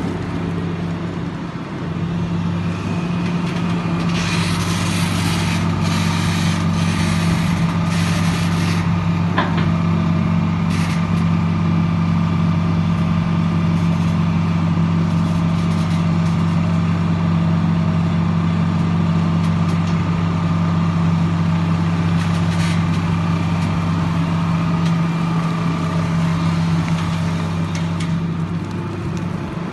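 Tata Hitachi EX 350 long reach excavator's diesel engine running at a steady working speed while the machine digs, a constant low drone. A stretch of rushing noise rises over it about four to nine seconds in.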